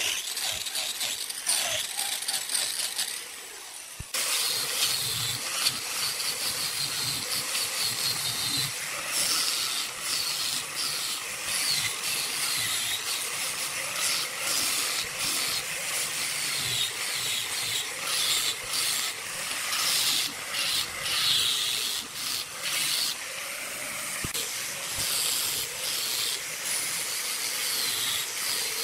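Electric angle grinder with abrasive discs grinding and sanding a large turned wooden column: a hissing, scratchy scrape that rises and falls as the disc bites into the wood. The sound dips briefly and then changes abruptly about four seconds in.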